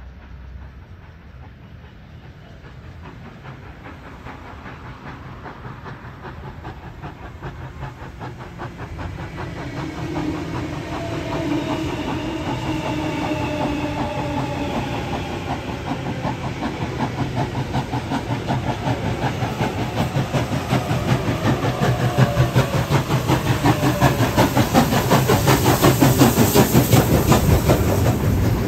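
NSWGR C36-class steam locomotive 3642 approaching and passing close by: the hiss and rapid beat of its exhaust grow steadily louder, with wheels clattering on the rails, loudest near the end as the engine goes by. Midway, a falling whine from an electric suburban train on the next track mixes in.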